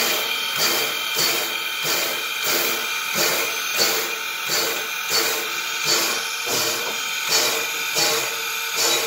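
Steam locomotive exhaust chuffing in an even beat of about two chuffs a second over a steady hiss of steam, from Canadian National 89, a 1910 2-6-0 Mogul working slowly in the yard.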